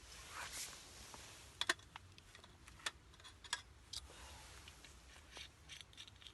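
A brief hiss, then a dozen or so scattered sharp clicks and light knocks at irregular intervals.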